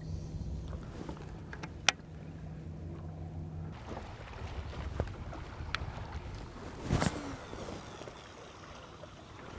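Low steady hum of a boat's electric trolling motor that cuts off about four seconds in, with a few sharp clicks on the boat and a louder knock about seven seconds in.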